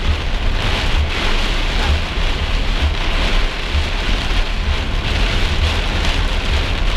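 Heavy rain pelting a moving car in a violent storm: a dense, steady rush of water with uneven low rumbling underneath.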